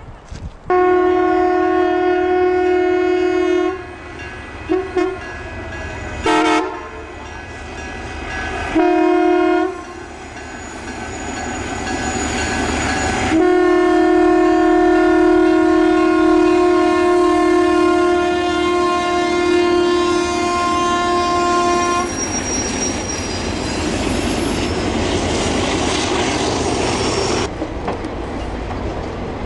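Diesel locomotive's air horn sounding a chord in a series of blasts: a long one of about three seconds, three short toots, a one-second blast, then a long blast of about eight seconds. After that the passenger train rolls by with a steady rush of wheels on the rails.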